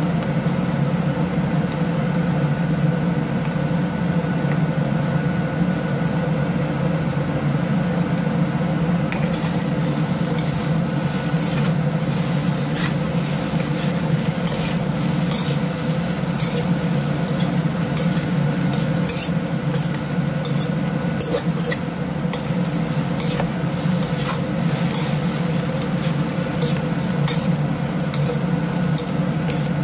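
Wooden spatula stir-frying rice in a wok over a steady sizzle and a steady low hum; from about nine seconds in, the spatula scrapes and clacks against the pan over and over as the rice is tossed.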